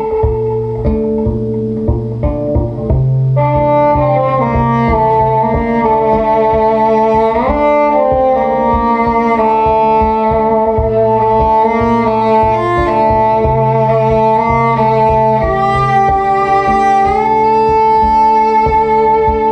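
NS Design CR6 electric cello bowed in a layered loop performance: sustained bowed notes over a held drone and a low rhythmic pulse. A brighter layer comes in about three seconds in, with upward slides in pitch partway through and near the end.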